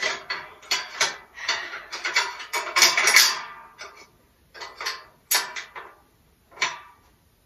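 Steel parts of an IKEA Råskog utility cart being worked by hand during assembly. For the first few seconds there is a dense run of metal rattling and clicking, then about six separate sharp knocks.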